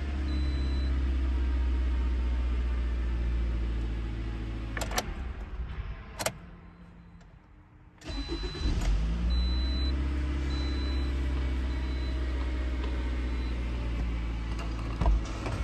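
Toyota RAV4 engine idling steadily, shut off about five seconds in with a couple of sharp clicks, then after about two seconds of quiet restarted, catching quickly and settling back into a steady idle. It is a test start after a fuel filter replacement meant to cure a long-starting problem.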